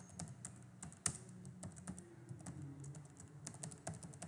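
Computer keyboard being typed on: a quick, irregular run of key clicks, with one louder keystroke about a second in, as a password is typed in.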